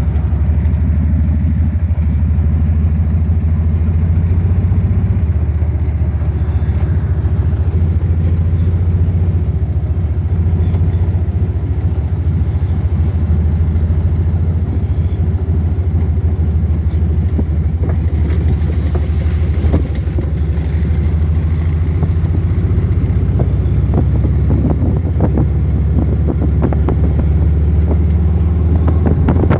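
A motor vehicle's engine running steadily while driving off-road, a low drone, with knocks and rattles over the rough track in the last few seconds.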